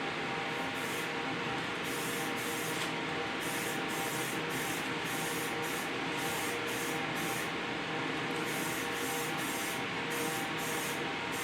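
Steady hissing noise with a faint hum, and short pulses of brighter hiss a few times a second.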